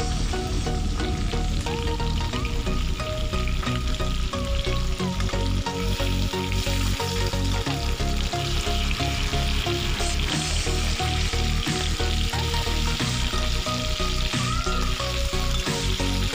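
Fish pieces frying in hot oil in a wok, sizzling steadily, with a spatula turning and scraping them now and then.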